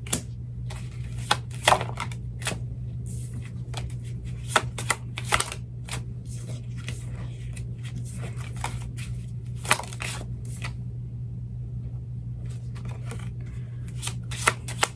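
Oracle cards being handled, shuffled and laid down on a table: irregular soft clicks, slaps and short rustles, over a steady low hum.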